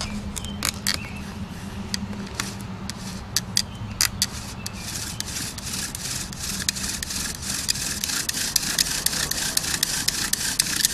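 Pine spindle spun back and forth by a fire bow against a pine baseboard: a dry wooden rubbing and rasping with clicks, seating the spindle and burning in the spot where it will drill. The rasping grows louder and more regular about halfway in.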